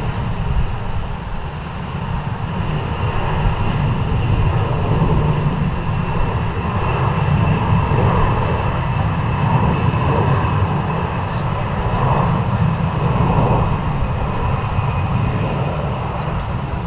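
Jet airliner engines running: a steady low rumble with a constant high whine above it, swelling a little in the middle.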